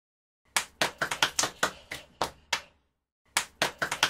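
A quick, uneven rhythm of about ten sharp percussive hits, played twice with a short pause between.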